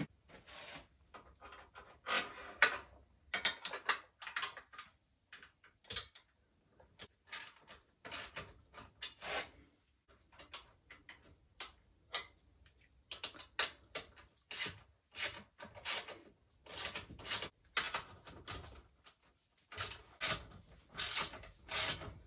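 Socket ratchet clicking in irregular runs of short strokes as an acorn nut is tightened onto the rear rack's mounting bolt, with occasional metal knocks against the rack.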